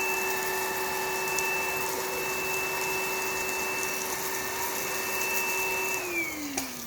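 Kmart Anko cordless stick vacuum cleaner running at normal speed: a steady motor whine over rushing air. About six seconds in it is switched off, and the whine falls in pitch as the motor spins down.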